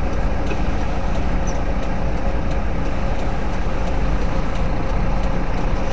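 Semi truck's diesel engine and cab noise running at a crawl: a steady low rumble with a faint steady hum over it.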